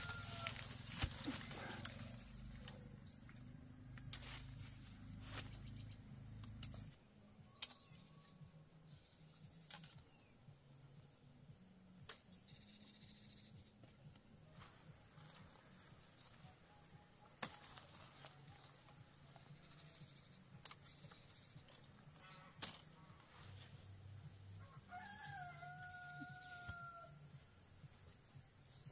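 A rooster crows, once about a second in and once for about two seconds near the end, among scattered sharp knocks and a faint steady high hiss.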